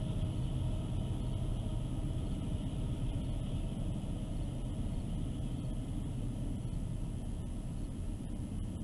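Low, steady rumble of diesel-electric helper locomotives working a loaded coal train upgrade, slowly fading.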